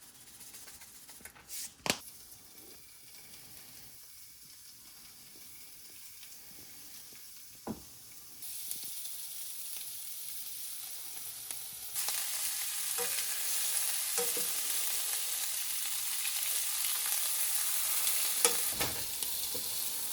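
Prawns frying in a pan. A sizzle starts about eight seconds in and gets louder around twelve seconds, then holds steady. A couple of knocks come before it.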